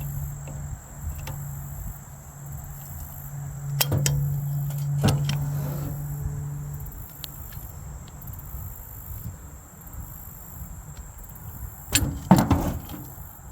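Facom 501A locking pliers being handled and worked, giving sharp metallic clicks from the lever and jaw mechanism: a couple around the middle and a quick cluster near the end. Under them is a steady low hum that stops about halfway through.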